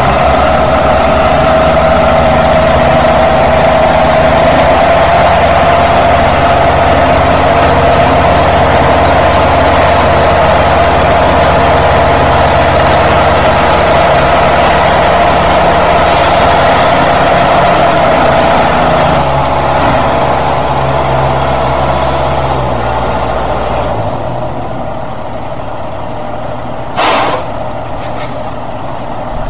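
Heavy tow truck's engine running hard under load as it pulls the steel trawler along, with a steady whine over the engine note. It eases off about three-quarters of the way through, and a short hiss of air follows near the end.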